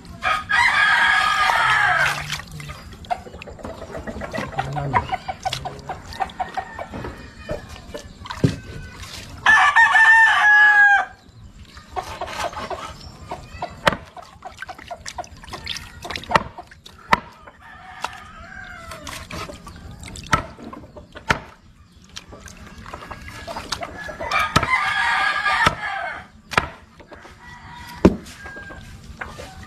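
A rooster crowing three times: near the start, about ten seconds in, and again about 24 seconds in, each crow lasting one to two seconds. Between the crows there are scattered short knocks from a knife cutting fish on a stone slab.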